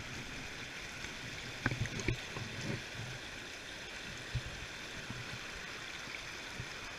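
Steady rush of flowing river water, with a few short knocks and clicks about two seconds in and one more a couple of seconds later.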